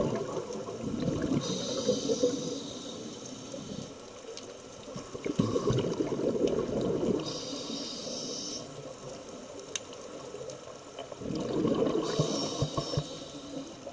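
Scuba diver breathing through a regulator underwater, three breaths. Each is a surge of exhaled bubbles followed by a short high hiss of inhaled air through the regulator.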